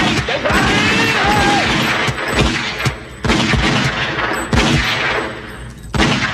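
Rapid volley of handgun fire from several guns at once. The shots come thick for the first few seconds, then thin out to a few heavier reports with echoing tails, the last one about six seconds in.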